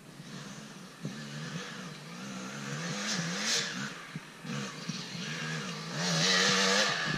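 Yamaha YZ250 two-stroke dirt bike approaching, its engine pitch rising and falling again and again as it is revved, growing louder to its loudest near the end.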